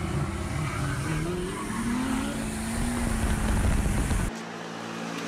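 Diesel pickup truck revving hard while rolling coal, its engine pitch climbing over the first two seconds and then holding over a heavy low rumble. About four seconds in the sound cuts off abruptly to a quieter, steady engine drone.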